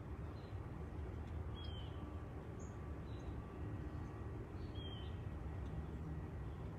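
Outdoor ambience: a steady low rumble with a few short, faint bird chirps, two of them clearer at about one and a half and five seconds in.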